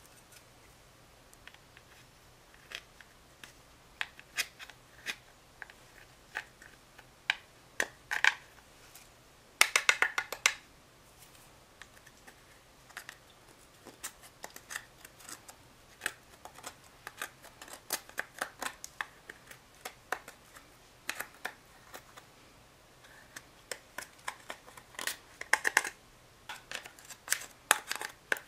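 Small metal spoon scraping and tapping in the pans of a pressed-powder eyeshadow palette, breaking up the shadow against its plastic case. Irregular short clicks and scratches, with a quick rattling flurry about ten seconds in and another cluster near the end.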